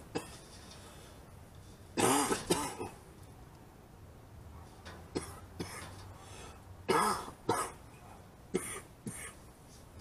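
A person coughing and clearing their throat in several short fits: a double cough about two seconds in, two brief ones around five seconds, a longer fit near seven seconds, and two more near the end.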